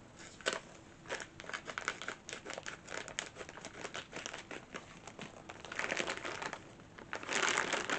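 Clear plastic bag crinkling and rustling as skeins of yarn are pulled out of it, a run of quick crackles with louder rustling about six seconds in and again near the end.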